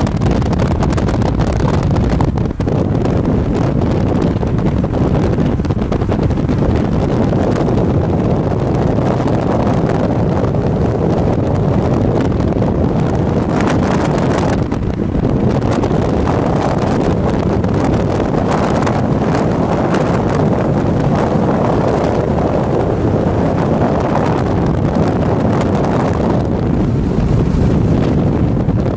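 Steady rush of road and wind noise from a moving vehicle at highway speed, with wind buffeting the microphone.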